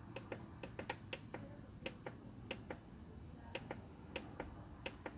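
Faint plastic clicks of buttons being pressed on a Korg synthesizer's front panel while stepping through edit parameters: about a dozen sharp clicks at an irregular pace of two or three a second.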